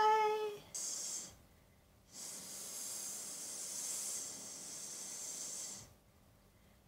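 A woman making a snake's hiss with her voice, a drawn-out 'ssss': a short hiss about a second in, then a long steady one of several seconds.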